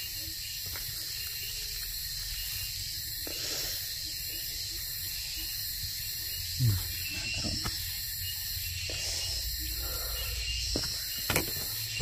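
High-pitched chorus of forest insects, a steady hiss with a regular pulse. A brief low falling sound comes about halfway through, and a sharp click near the end.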